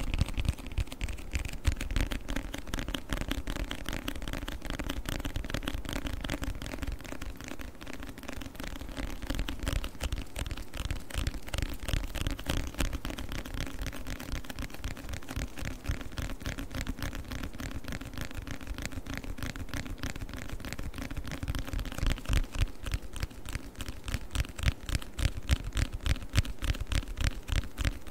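Fast, continuous tapping on a book, many light taps a second, growing louder near the end.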